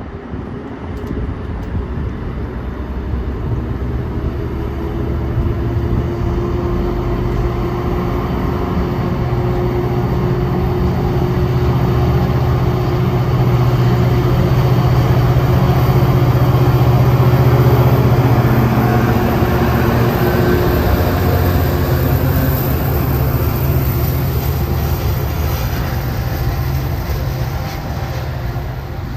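Metra diesel locomotive 90 pushing a passenger train past, its engine drone and the rumble of wheels on rail growing louder to a peak about halfway through, then slowly fading.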